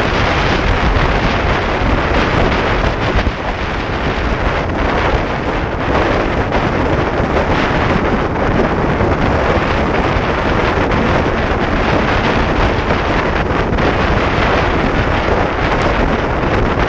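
Wind buffeting an action camera's microphone on a motorcycle moving at highway speed: a steady, loud rush with no clear engine note above it.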